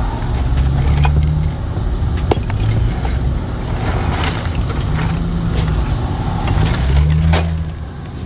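Metallic clicks and clinks of a hydraulic floor jack being worked under the front of a car, over a low hum.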